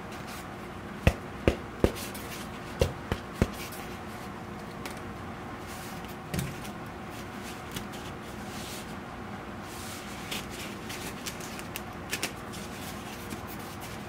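Hands handling a high-density foam kneeling pad. Several sharp taps and knocks come in the first few seconds and a dull thump about six seconds in, then the foam rubs and scrapes as the cut-out handle insert is worked out of the pad.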